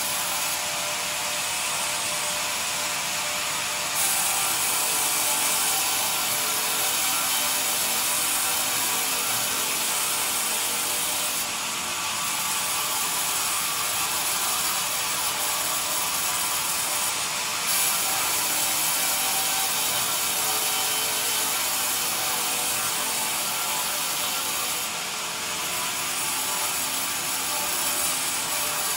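Sawmill band saw ripping lengthwise through a squared pine beam on the log carriage: a steady, hissy sawing noise of the blade in the wood, shifting slightly in level a few times.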